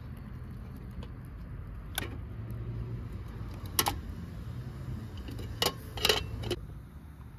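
A few sharp clinks of hard objects knocked together: single ones about two and four seconds in, then three in quick succession near the end, over a steady low hum.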